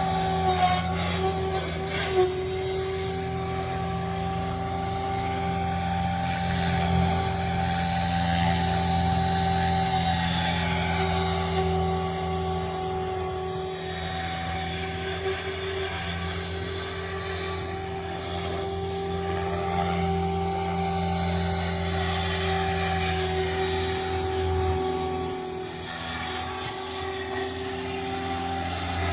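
Align T-Rex 550E electric RC helicopter in flight: the steady hum of its spinning rotor blades with the whine of its electric motor, the pitch holding nearly level with small wavers.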